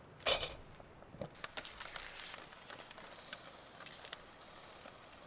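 Aluminium foil packet crinkling as it is handled on a small charcoal grill: one sharp rustle about a quarter second in, then faint scattered clicks and crackles over a low hiss.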